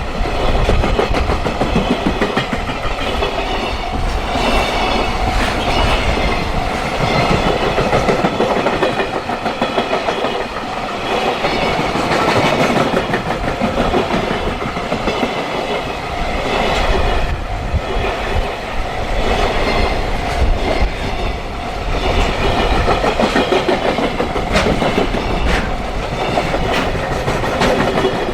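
A long train passing close by at a level crossing, its wheels clattering steadily over the rail joints for the whole time. Steady tones run under the clatter, consistent with the crossing's warning bell ringing.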